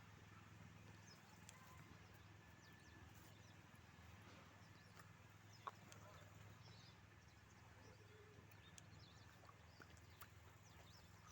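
Near silence: faint outdoor background with a low steady hum and a few scattered faint clicks.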